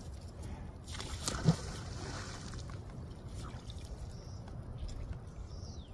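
A magnet-fishing magnet splashing into the water about a second and a half in, within a short rush of noise, followed by water trickling.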